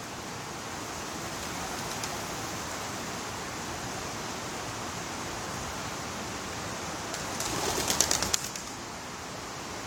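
A flock of pigeons taking off, a rapid clatter of wingbeats lasting about a second, late on. Under it a steady rush of creek water.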